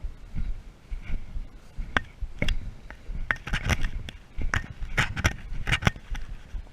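Irregular crackling and scraping, like footsteps and brushing through dry forest undergrowth, with soft low thuds and sharper crackles that come thicker in the second half.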